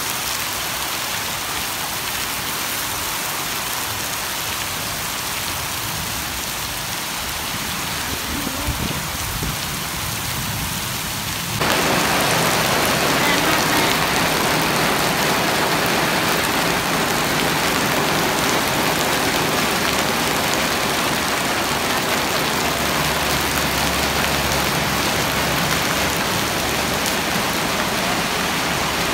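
Heavy rain pouring onto pavement and a road, a steady hiss. About twelve seconds in it jumps louder and brighter.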